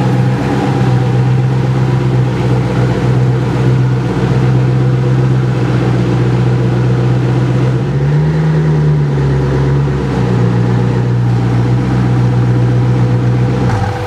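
Koenigsegg Agera R's twin-turbo V8 idling steadily, with the idle rising briefly about eight seconds in.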